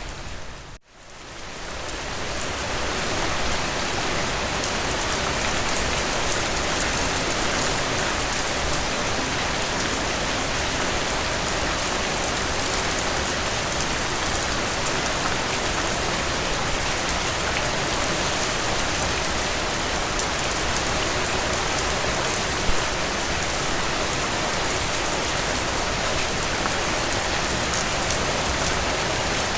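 Heavy rain falling steadily, a dense even hiss of drops. About a second in it drops out briefly and fades back up over a couple of seconds.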